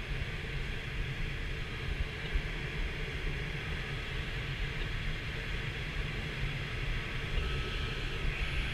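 Steady rush of airflow inside the cockpit of an ASK 13 glider in flight: a low rumble with a hiss of air over the canopy, and no engine, since the aircraft is unpowered.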